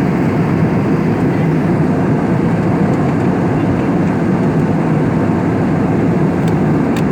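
Steady cabin noise of an airliner in flight: jet engine and airflow noise, even and loud, heaviest in the low range.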